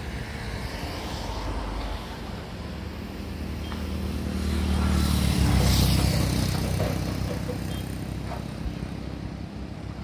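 A heavy motor vehicle's engine running close by: it grows louder to a peak about six seconds in, then fades as it passes.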